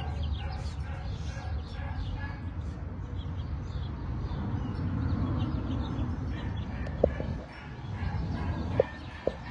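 Steady low rumble with faint, scattered animal chirps and clucks in the background; near the end come three short high squeaks.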